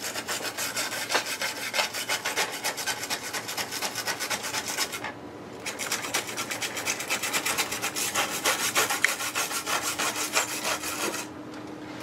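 Small wire brush scrubbing a plastic bridge truss in quick back-and-forth strokes, with brief pauses about five seconds in and just before the end. The brushing is taking the shiny glue spots off so the part can be painted.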